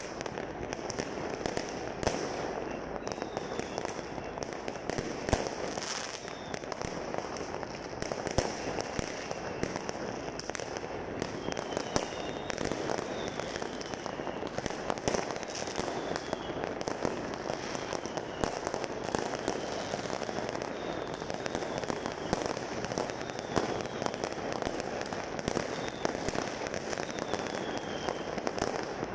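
Many fireworks and firecrackers going off across a city at once: a continuous rumble and crackle of distant bangs with sharper, nearer pops scattered irregularly through it, and now and then a short high whistle that falls slightly in pitch.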